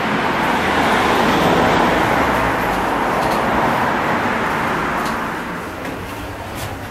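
Road traffic: a passing vehicle's tyre and engine noise, loudest over the first few seconds and then fading away, with a few faint clicks near the end.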